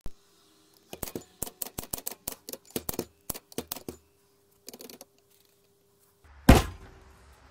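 Manual typewriter typing: a quick run of about a dozen sharp key strikes, then a short rattle, then one loud thump near the end.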